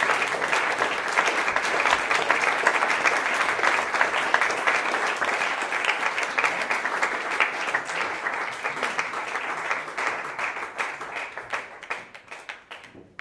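Crowd applause, many hands clapping in a dense, even wash that thins out from about nine seconds in and dies away to a few scattered claps near the end.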